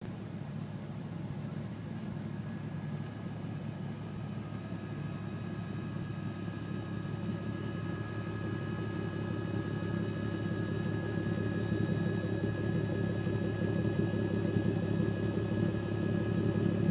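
VW Golf R32's 3.2-litre VR6 idling steadily through its MagnaFlow exhaust, heard at the tailpipe, growing gradually louder.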